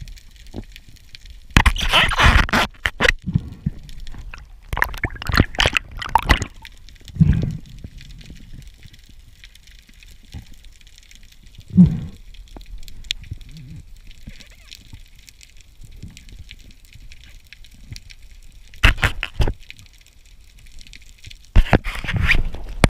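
Water gurgling and sloshing against a camera filming underwater, in irregular loud bursts over a low steady hiss.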